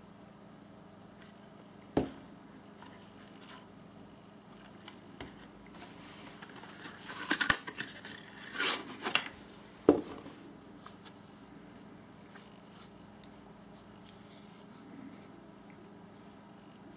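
A small cardboard box being handled and opened: a sharp knock about two seconds in, then a few seconds of cardboard and paper rustling and scraping as the flap and paper insert are pulled out, and another knock about ten seconds in.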